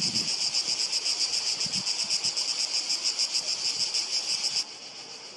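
Chorus of cicadas singing in pine trees: a loud, continuous high buzz with a fast pulse in it, which drops sharply in level near the end.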